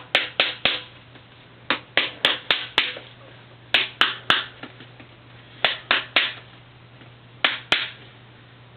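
Sharp clicks or taps coming in quick groups of two to five, about four a second, with short pauses between the groups.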